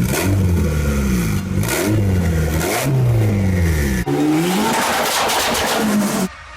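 Car engine revving hard several times, its pitch sweeping up and falling back again, with an abrupt cut to another stretch of revving about four seconds in. The sound drops off suddenly near the end.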